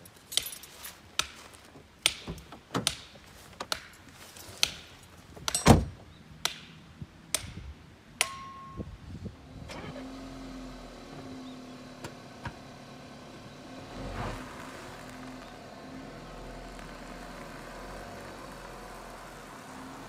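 A string of sharp knocks and thumps, then a short beep, then a car engine starting and running steadily, rising briefly about two-thirds of the way through.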